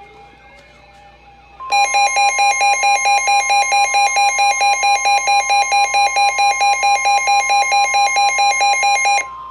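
Weather alert radio sounding a severe thunderstorm warning alarm: a loud, buzzy electronic beeping pulses about four times a second over a steady single warning tone. Both start suddenly a little under two seconds in, and the beeping cuts off near the end while the steady tone carries on.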